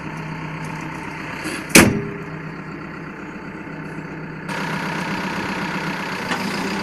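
Caterpillar backhoe loader's diesel engine idling steadily, heard inside the cab, with one sharp loud knock about two seconds in. About four and a half seconds in the engine becomes louder and brighter, as heard from outside the machine.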